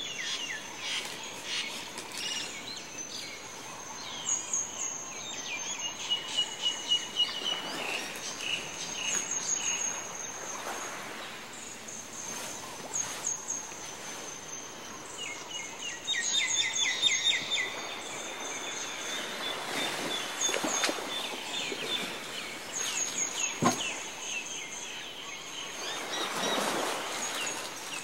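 Small birds chirping and trilling in quick repeated phrases over a steady outdoor background, with a single sharp click about two-thirds of the way through.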